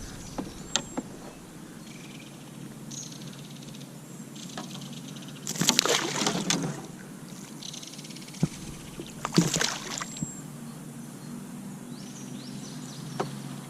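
A small bass being unhooked from a treble-hook jerkbait by hand. There are scattered sharp clicks of hooks and lure, and two brief rustling bursts from handling the fish about six and nine and a half seconds in.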